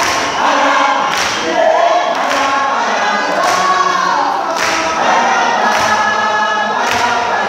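A group of people singing together in chorus, unaccompanied, with sharp hand claps keeping the beat about once a second.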